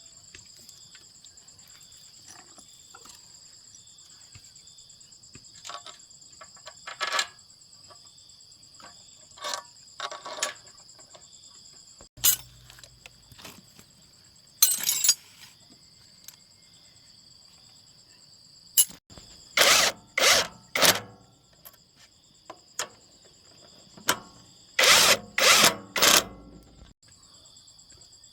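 Crickets chirring steadily, with scattered short clattering and clunking bursts of metal work on a small engine, including two quick runs of about four near the middle and toward the end.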